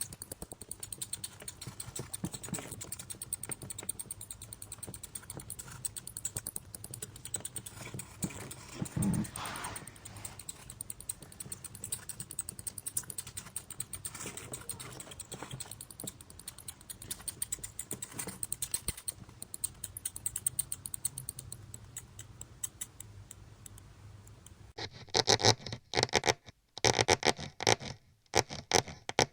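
Mouse scurrying and scratching sound effect: a fast, continuous patter of tiny claw-like clicks. About 25 s in it turns louder and choppier, in short scratchy runs with brief gaps.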